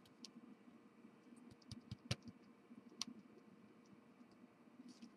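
Near silence, broken by a few light taps and clicks of craft tools handled on a work surface: a small cluster about two seconds in and a single click about a second later.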